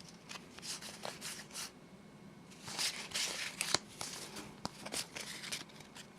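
Foil wrapper of a Pokémon booster pack crinkling and cards sliding out and being handled, in short rustling bursts, busiest about three seconds in, with a sharp click shortly after.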